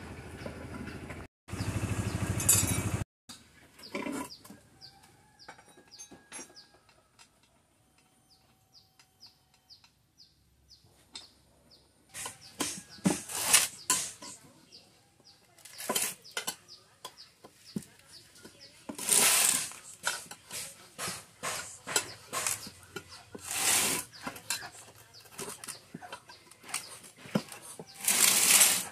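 Tyre fitting by hand: a motorcycle tyre being worked onto its cast alloy rim with a steel tyre lever, in irregular bursts of scraping rubber and metal, with small clicks and knocks between them.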